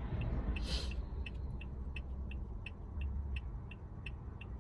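Car turn-signal indicator ticking steadily, about three ticks a second, over the low rumble of the car running on the road, heard inside the cabin. A short hiss comes about a second in.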